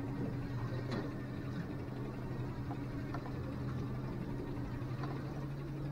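Boat's outboard motor running steadily, a low even hum, with a single sharp click about a second in.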